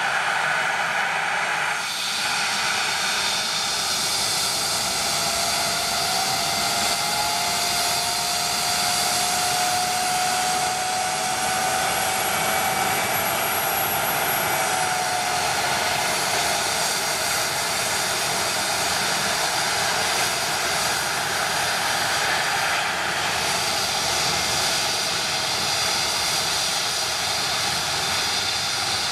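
Air ambulance helicopter's turbine engines running on the helipad with a steady whine and rush. A fainter tone rises slightly about six seconds in and fades out around fifteen seconds in.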